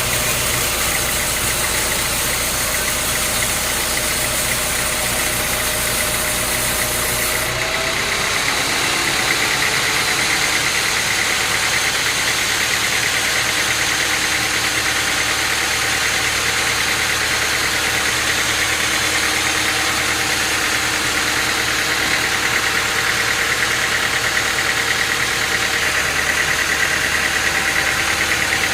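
Sawmill machinery running steadily: an engine-driven mill with a constant hum and whine. The sound shifts about seven seconds in, losing its deepest rumble and highest hiss.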